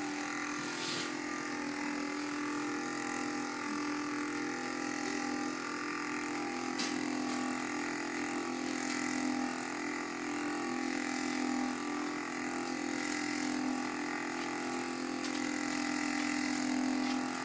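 Handheld electric massager's motor running with a steady hum.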